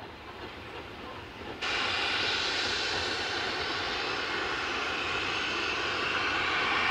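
A faint train on the rails, then about one and a half seconds in an abrupt switch to a louder, steady rushing roar from a distant steam locomotive, swelling slightly toward the end.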